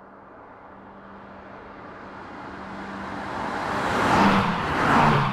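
Two BMW M3/M4 Competition cars, each with a twin-turbo straight-six, approaching and passing one after the other. Their exhaust note builds steadily and peaks twice, about four and five seconds in, as each car goes by.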